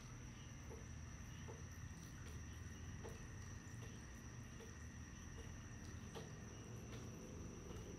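Small terrarium waterfall running faintly: a steady low hum and high whine, with soft drips about once a second.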